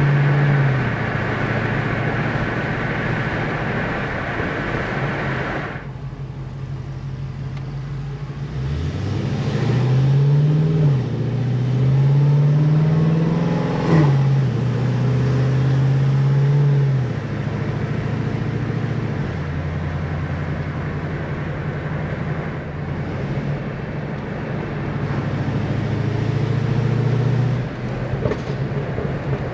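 2009 Cadillac CTS-V's supercharged V8 running through longtube headers, a catless Corsa X-pipe and Corsa Extreme mufflers: a steady exhaust note that climbs twice in revs near the middle, then drops off with a sharp crack before settling back to a steady note.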